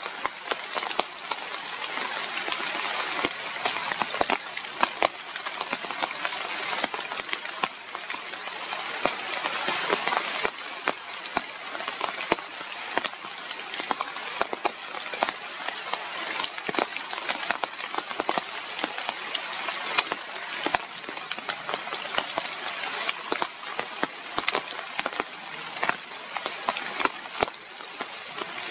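Steady rain falling on leaves: a constant hiss with many separate sharp drop hits scattered through it.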